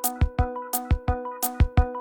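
Background music with a steady, fairly quick electronic beat: kick drum, hi-hat and sustained synth chords.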